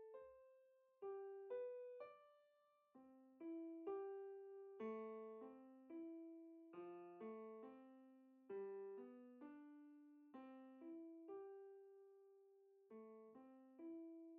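Soft background piano music: a slow melody of single notes and chords, each struck and left to fade.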